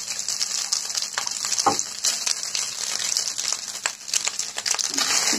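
Egg fried rice sizzling in a hot pan while a spatula scrapes and taps through it, stirring cooked rice into the fried egg and spices. The sizzle is a steady hiss, broken by short irregular scrapes.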